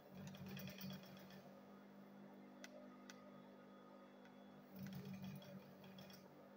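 Industrial flatbed sewing machine stitching through a leather bag in two short runs of rapid ticking, about a second in and again near five seconds, with a steady low hum between them and a couple of single clicks around the middle.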